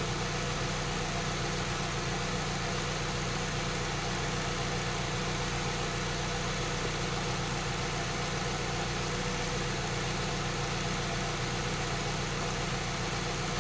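A 2008 Saab 9-3 2.0T's turbocharged four-cylinder engine idling steadily.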